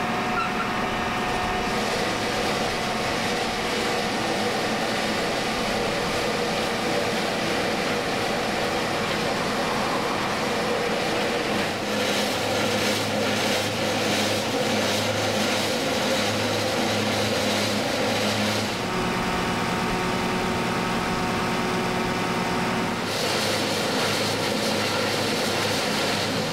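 A Road Twister 2000 concrete fine-milling machine running steadily, its engine and milling head working the concrete pavement. The pitch and texture of the machine noise shift about 12 seconds in, again at about 19 seconds and once more near the end.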